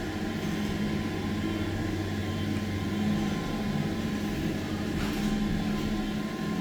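Passenger lift's drive motor running with a steady low hum as the car travels slowly. The lowest part of the hum drops away about five seconds in.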